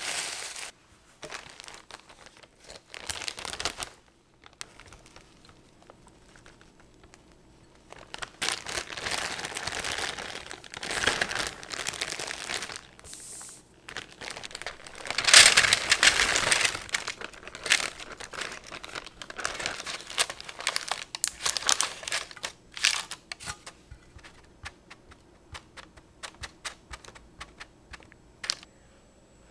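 Plastic zip-top bag crinkling in irregular bursts as the crushed Oreo cookies inside are squeezed and mixed with melted butter, loudest about halfway through. Near the end, light scattered clicks of a silicone spatula pressing the cookie crumbs flat in a parchment-lined dish.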